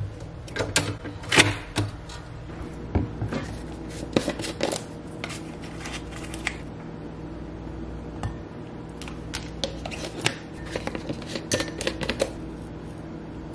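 Scattered light clicks and taps of a plastic scoop in plastic powder tubs and against a glass mason jar, over a low steady hum.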